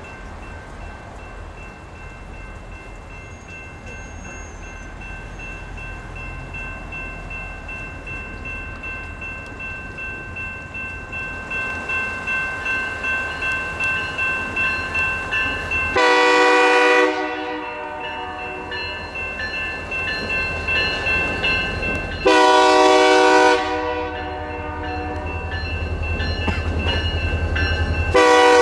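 Freight locomotive horn sounding for a grade crossing: two long blasts, each about a second or more, in the second half, and a third starting right at the end. Underneath, crossing-signal bells ring steadily and the rumble of the approaching GP40-2 diesel locomotives grows louder.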